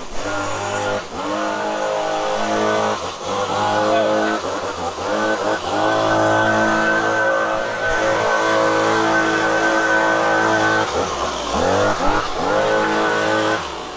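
Handheld gas-engine leaf blower running at high throttle, its pitch dipping and picking back up a few times, with a deeper slowdown and rev-up near the end before it stops.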